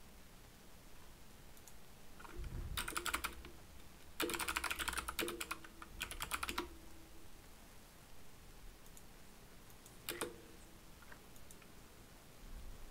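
Typing on a computer keyboard: a short quick burst of keystrokes about three seconds in, a longer run of them from about four to nearly seven seconds, then one last click about ten seconds in.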